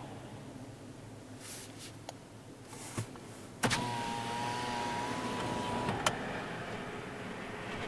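Car power window motor whining steadily for about two seconds, starting and stopping with a click, against a background of wind noise around the car.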